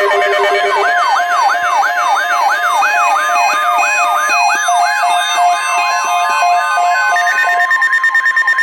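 Weather alert radios going off together: an electronic siren sweeping upward about three times a second over steady beeping and a steady alert tone. Near the end the siren stops, leaving a steady higher tone.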